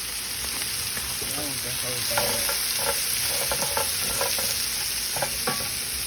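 Onions and peppers sizzling in butter in a hot cast-iron skillet, with a utensil stirring them and clicking against the pan several times from about two seconds in.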